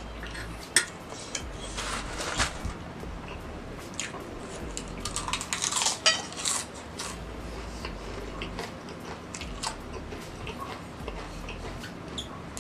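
Metal fork clinking and scraping on a stainless steel tray, with close-up chewing. About five to six and a half seconds in there is a dense run of crunching as a potato chip is bitten and chewed.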